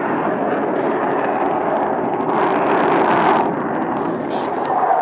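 Jet noise from Blue Angels F/A-18 Hornets flying a low display, a steady loud rush with a brief harsher surge a little past halfway.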